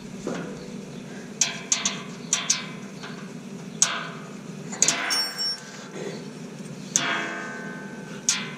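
Irregular sharp metallic clicks and clinks of a hand tool working the bolts of an aluminium skid plate as it is tightened up, about ten in all, a few ringing briefly.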